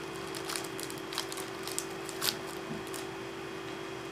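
Paper food wrapper crinkling in the hands as it is unwrapped, in short irregular crackles, over a steady low hum.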